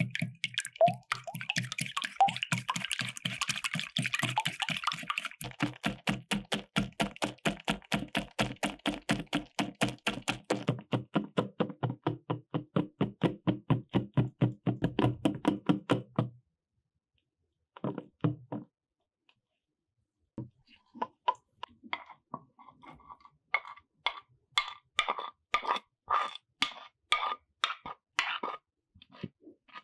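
Silicone-coated balloon whisk beating egg whites into a foam in a glass bowl, knocking against the glass in fast, even strokes of about four a second. The strokes stop abruptly about 16 seconds in, and after a pause the whisking resumes with slower, sharper strokes.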